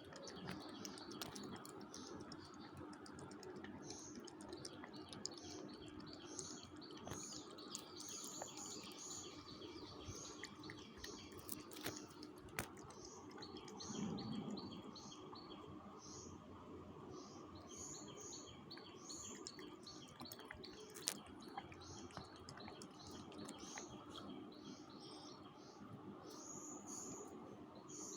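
Small birds chirping throughout, short high chirps coming several times a second, over a faint steady hum. A brief louder low rumble comes about halfway through.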